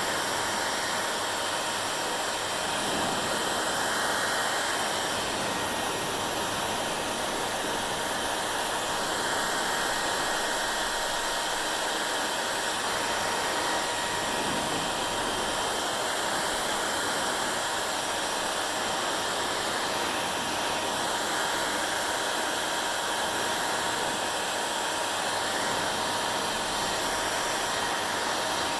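Hair dryer running steadily: an even rush of blown air over the motor's whine, with no change in speed.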